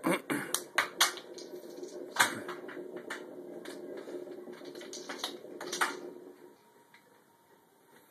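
Plastic pop bottle cap clicking and skittering on a hard kitchen floor as it is flicked and batted about: a handful of sharp taps, most in the first second and a couple more around two and six seconds in. Under them a steady low hum stops about six and a half seconds in.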